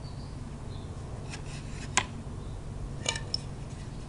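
Light clicks and knocks of wooden yarn-swift pieces being handled, with one sharp click about two seconds in and a small cluster about a second later, over a steady low hum.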